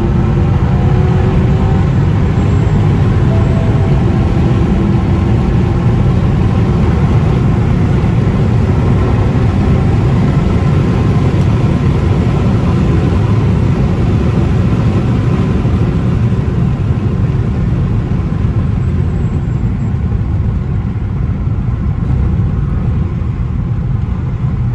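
BMW E60's N62 V8 engine and road noise while driving, heard from inside the cabin. The engine note rises and falls in the first few seconds, then settles into a steady cruise.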